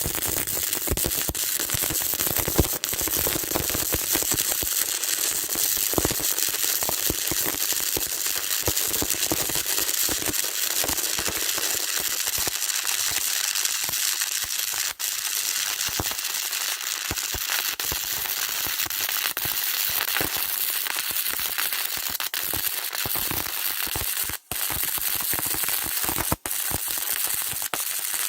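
Electric arc welding: the arc's steady, dense crackle and hiss, dropping out for a split second about halfway through and twice more near the end.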